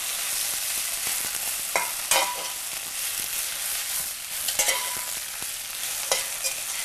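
Spinach with onions and garlic sizzling in oil in a hot sauté pan as it is tossed and turned with metal tongs and a fork, with a few sharp clinks of the utensils against the pan.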